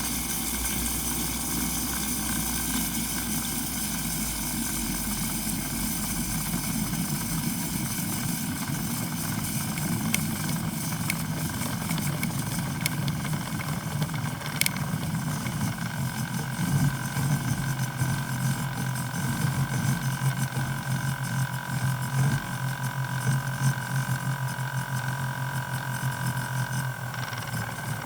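Espresso machine steam wand frothing milk: a steady steam hiss over a low buzzing hum, the hum growing steadier and stronger about halfway through.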